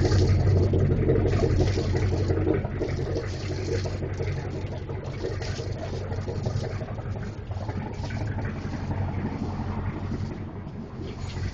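A fuel-injected PCM 6.0-litre V8 inboard engine idling steadily with a deep, even hum, slightly louder over the first two and a half seconds.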